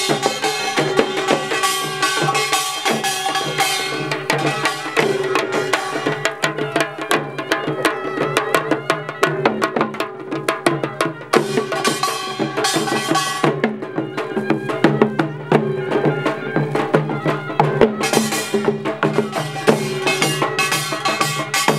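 Live Korean pungmul folk percussion: buk hand drums and other percussion beaten in a fast, dense rhythm over sustained ringing tones.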